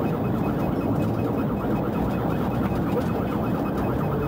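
Police car siren in a fast, repeating warble, heard from inside the pursuing patrol car over steady engine and road noise.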